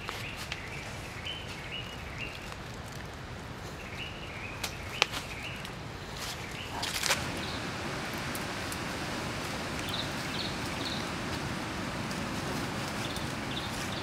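Forest ambience: a steady outdoor hiss with short, high bird chirps repeating in small groups. A few sharp clicks and knocks come in the middle.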